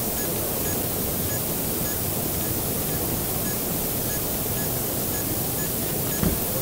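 Steady, even noise of a large exhibition hall's ambience, with no voices standing out. Faint short ticks repeat about one and a half times a second, and a brief thump comes near the end.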